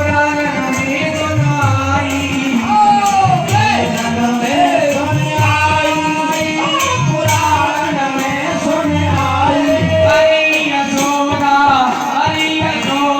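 A Hindi devotional folk song celebrating Krishna's birth, sung over steady rhythmic percussion with a low drum beat.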